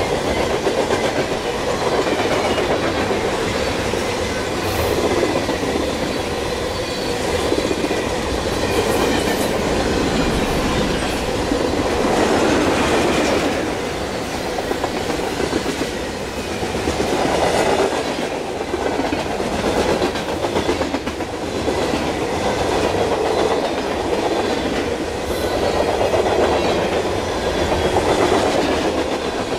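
A freight train's tank cars and covered hopper cars rolling past at close range: a continuous rumble of steel wheels on rail with clacking over the rail joints, rising and falling every few seconds as the cars go by.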